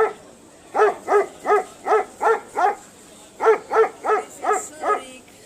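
A dog barking repeatedly, about three barks a second, in two quick runs with a short pause between them.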